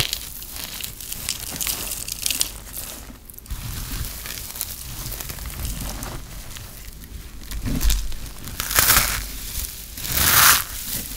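Hands crushing and rubbing balls of dry grated soap shavings, a crispy crumbling and crinkling, with louder crunches about nine and ten seconds in.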